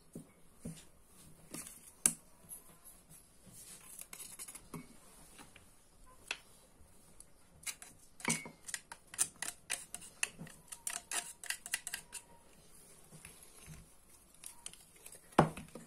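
Metal garlic press being squeezed over a glass mug, with scattered clicks and creaks of the press. About eight seconds in comes a quick run of sharp clicks and scrapes lasting a few seconds, as a knife scrapes the pressed garlic off the press.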